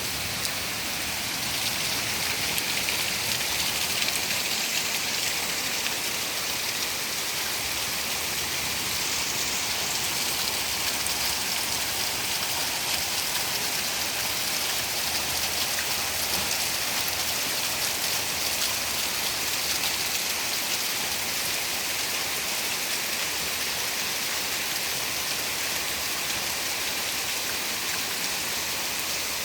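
Heavy rain pouring down steadily among large trees in a garden, an even hiss of drops.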